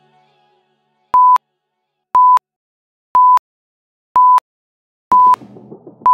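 Interval-timer countdown beeps: five short, even beeps at one pitch, one a second, then a longer beep near the end that marks the end of a rest period.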